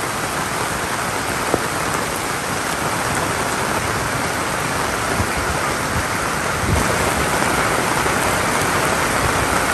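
Heavy rain falling steadily: a dense, even hiss of rain on surfaces, with a few scattered sharper drop ticks.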